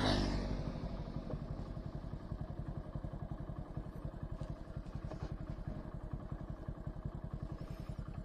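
Single-cylinder engine of a Hero commuter motorcycle ticking over with a steady, fast, even beat. Another vehicle passes close by in the first second, swelling and then fading.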